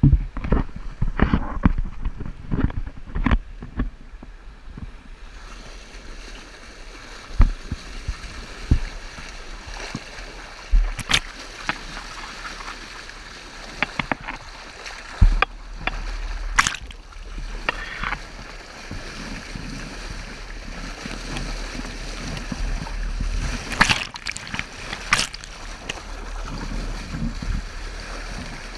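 Water rushing and splashing against a sailboat's hull under way, heard close at the waterline, with a steady wash broken by sharp slaps of spray. Several knocks in the first few seconds as the camera is handled.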